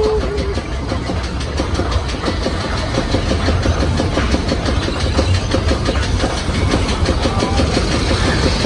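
Primeval Whirl spinning roller coaster car running on its track, a rapid, steady clacking and rattling over a low rumble as the ride gets under way.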